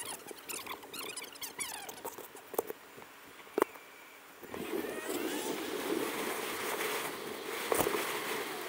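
Street sound from an electric skateboard ride, played back sped up: short high chirps and clicks while the board stands still, then, about halfway through, a steady rushing of the wheels on the road and wind as it rolls off, with one knock near the end.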